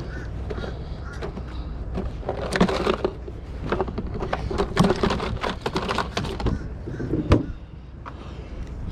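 A plastic cooler and its lid being handled: a run of knocks, clicks and rattles, thickest through the middle, with one sharp knock near the end, over a steady low wind rumble on the microphone.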